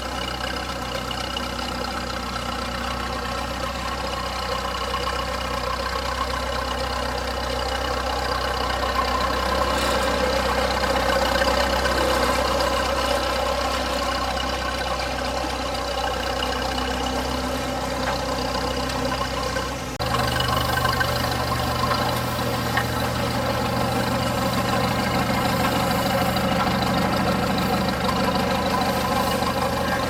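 1941 McCormick-Deering Farmall H tractor's four-cylinder engine running steadily at low speed while pulling a towed hay baler. It grows louder as the tractor comes close, and its tone changes abruptly about two-thirds of the way through.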